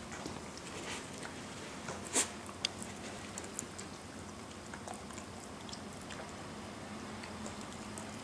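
Puppy licking and chewing a small ball of frozen dog sherbet, with small wet clicks of tongue and teeth. A sharp click about two seconds in and another shortly after stand out.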